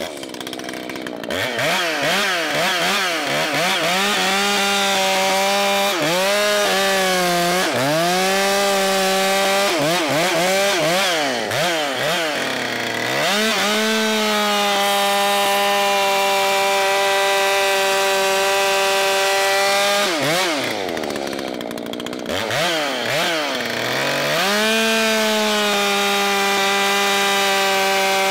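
Two-stroke chainsaw at high revs cutting wood. Its pitch swings up and down repeatedly through the first ten seconds or so, then it holds steady at full speed, sags for a few seconds about two-thirds of the way through, and climbs back to full speed.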